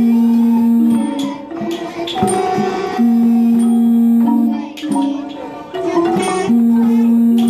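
Thai traditional ensemble music: struck and plucked melody notes over light percussion, with long held notes about every three seconds.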